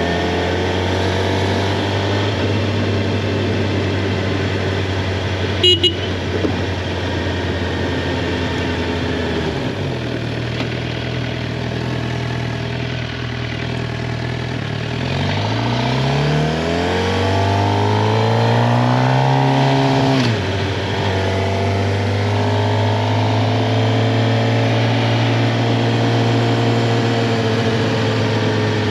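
2023 Suzuki GSX-R750's inline-four engine running at steady revs, easing off about ten seconds in, then climbing in pitch under throttle for several seconds. The revs cut off sharply about twenty seconds in and then settle back to a steady pull. A short sharp click about six seconds in.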